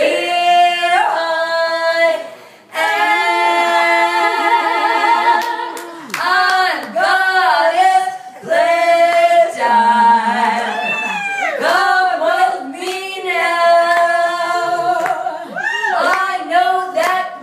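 Two women singing a duet without accompaniment, through microphones, with long held notes and swooping, sliding phrases.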